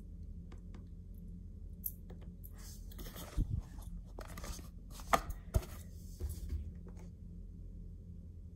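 Handling noise from a phone being moved and held: scattered clicks and rustling with a few sharp knocks, the loudest about five seconds in, over a low steady hum.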